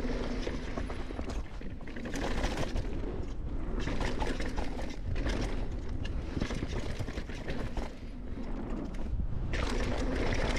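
Mountain bike descending a rough dirt trail: tyres running over dirt and rocks while the bike clatters and rattles over the bumps, with a heavy low rumble of wind on the microphone.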